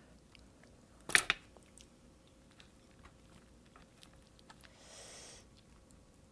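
Quiet, close-miked eating sounds: faint small clicks of chewing. There is one sharp click about a second in and a short soft rustle about five seconds in, as a steamed dumpling is handled and pulled apart.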